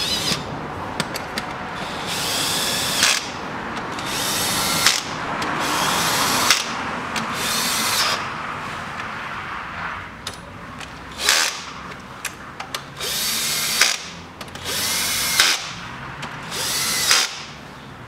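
Cordless drill-driver running valve cover bolts down in several short runs of about a second each. Most runs end in a sharp snap as the bolt seats under light torque.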